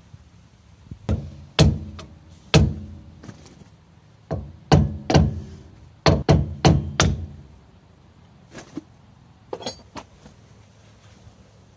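Hammer blows on the steel rear brake drum hub of a 1992 Fiat Ducato, working off the hub's grease cap: sharp metallic knocks, each ringing briefly. About nine loud blows come in two bursts, then a few lighter taps near the end.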